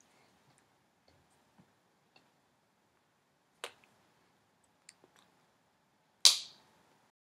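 A few faint scattered clicks, a sharper click about halfway through, and one loud sharp knock near the end that dies away within half a second.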